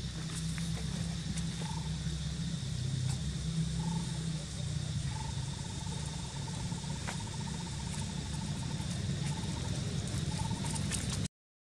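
Outdoor ambience of insects: a steady high-pitched insect drone over a constant low hum, with a few short chirps and one long rapid trill of about three and a half seconds in the middle. The sound cuts out completely just before the end.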